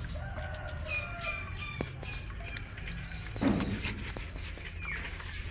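Birds chirping and calling in the background: scattered thin whistled notes, a quick run of four high chirps about three seconds in, and a short louder call just after.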